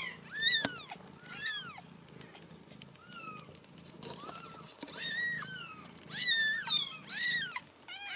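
Very young Ragdoll kittens mewing, about ten short, high, arching cries, over a steady low purr.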